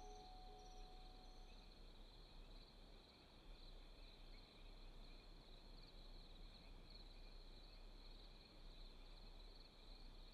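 Faint, steady chirring of insects. The last held notes of the music fade out in the first second or two.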